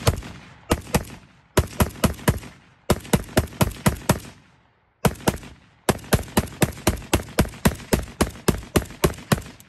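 Rapid semi-automatic fire from a Zastava ZPAP AK-pattern firearm: strings of sharp shots about three a second, each with a short ringing tail. There is a brief pause about five seconds in before the firing resumes.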